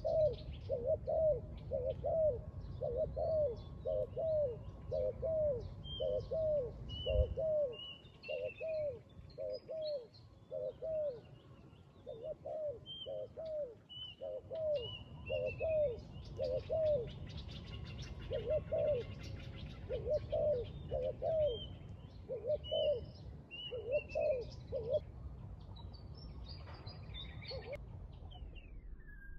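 Spotted doves cooing over and over in quick, evenly spaced phrases, with small birds chirping faintly higher up; the cooing stops a few seconds before the end.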